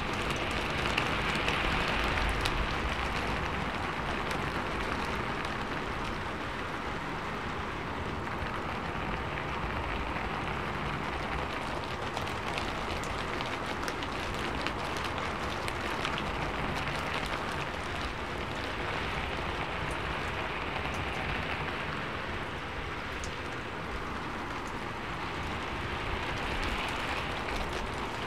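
Steady rain on a sheet-metal roof: a dense patter of individual drop hits over a continuous hiss, swelling and easing every few seconds.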